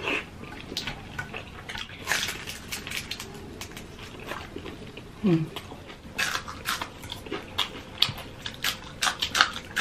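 Close-miked eating with the hands: many short wet clicks of chewing and lip-smacking, with bites into crisp fried fish and spring roll. A brief low hum-like mouth sound about five seconds in.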